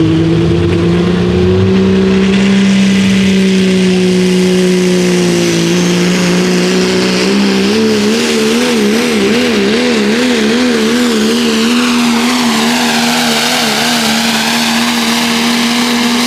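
Turbocharged diesel pulling truck running hard at high revs on a pull. Its note warbles rapidly for several seconds in the middle, and a high whine above it dips and climbs again near the end.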